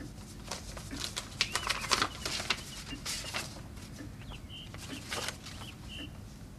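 Paper rustling and crackling as a letter is taken out and unfolded, loudest in the first half, with a clock ticking about once a second and a few short bird chirps.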